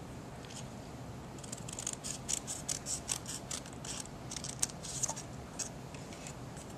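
Scissors snipping through a thin strip of paper: a run of quick, crisp snips, about three or four a second. They start about a second and a half in and stop about a second before the end.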